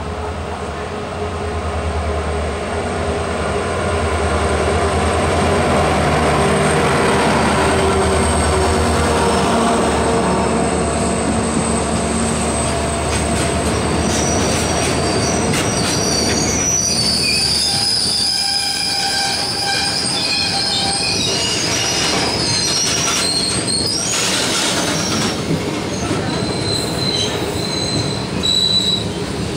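A goods train passes close alongside on the next track, heard from a moving passenger train. The locomotive's low hum swells over the first several seconds. Then the long line of covered freight wagons runs by with rolling wheel noise, clicks at the rail joints, and high wheel squeals through the second half.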